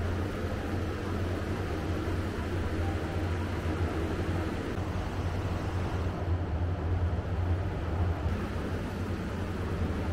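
Steady low hum with an even hiss: indoor room tone, with no sudden sounds.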